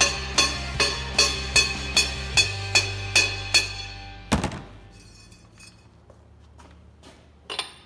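Background music with a steady beat and bass line that fades out about four seconds in. Just after it stops comes one loud hammer knock on metal, then a few faint ticks.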